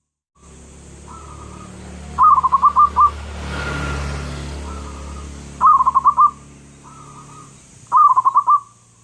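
Zebra dove (perkutut) cooing. It gives three phrases, each a soft lead-in note followed by a quick run of about five ringing notes, over a low hum.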